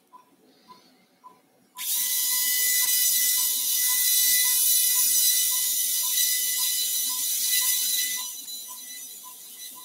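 High-speed surgical drill with a burr running steadily, cutting the ventral slot in the neck vertebra. It starts about two seconds in and dies away near the end. Under it, a patient monitor beeps about two and a half times a second with the dog's pulse.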